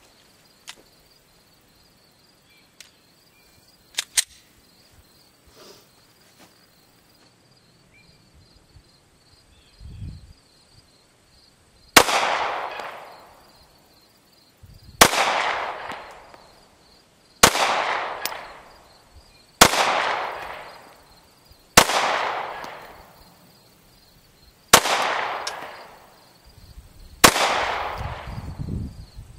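Seven single shots from a Glock 19 9mm pistol, slow aimed fire about two to three seconds apart, each crack followed by a long fading echo. They start about twelve seconds in, after a stretch of a few light handling clicks.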